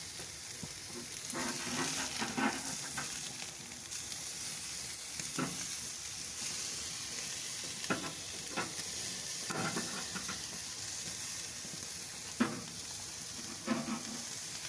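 Wagyu steaks sizzling on a charcoal grill as they are flipped with metal tongs, a steady hiss broken by several sharp clicks of the tongs on the grate.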